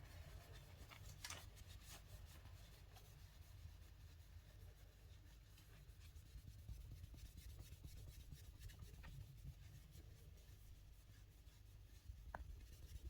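Faint scratchy rubbing of a microfibre towel wiping polish off a painted car door handle, over a low steady hum; near silence overall.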